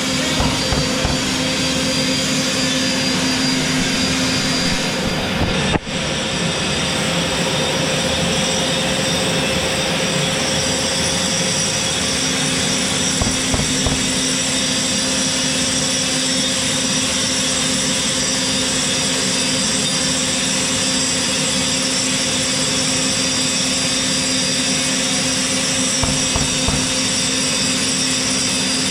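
Angle grinder with a diamond grinding wheel running steadily against a surface, together with the steady whine of its attached Hilti cordless dust extractor drawing off the dust. The noise drops out briefly about six seconds in.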